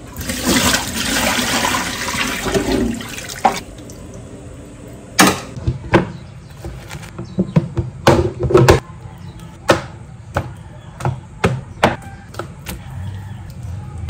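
Water splashing into a stainless steel sink over a plastic freezer tray for about three and a half seconds. Then scattered clicks and knocks as a plastic food container and bagged raw chicken are handled on a plastic chopping board.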